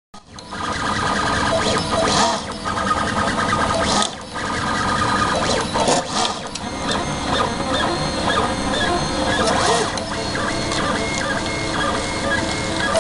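Prusa Mendel (iteration 2) RepRap 3D printer printing: its stepper motors whine in several shifting pitches as the axes move, with a few short changes in the pattern as the moves change.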